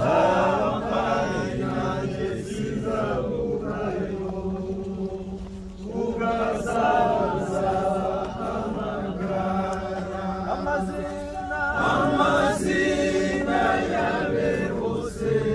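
A crowd of mourners singing together in chorus, in long sustained phrases with short breaks about six and twelve seconds in.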